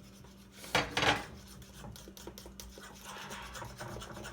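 A utensil stirring thick coconut-flour pancake batter in a bowl, scraping and rubbing against the bowl as the clumps are worked out, with two sharp knocks about a second in.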